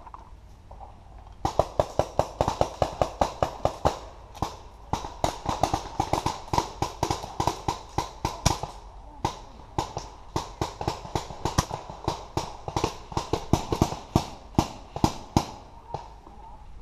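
Paintball markers firing in rapid strings, about seven shots a second, with short breaks between strings. The shooting starts about a second and a half in and stops shortly before the end.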